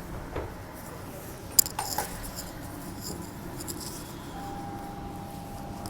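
Background noise inside a Transperth A-series electric train carriage, with a few sharp clicks about a second and a half in. A steady high beep starts near the end.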